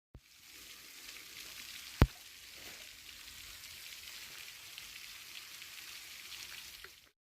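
Thin trickle of water from a nearly dry waterfall pattering and splashing on rock, a steady fine hiss, with one sharp knock about two seconds in.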